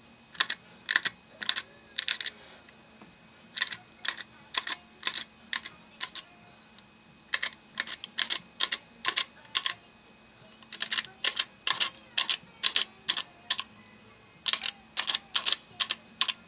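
A toothpick poking holes through foil stretched tight over a hookah bowl: crisp taps, about three a second, in runs of several with short pauses between runs.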